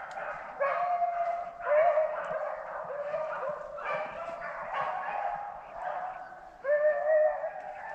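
A pack of rabbit hounds baying in overlapping, drawn-out calls, several dogs giving voice at once as they run a swamp rabbit.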